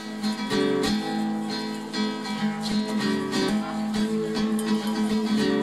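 Instrumental music with no singing: steady strummed chords on an acoustic guitar.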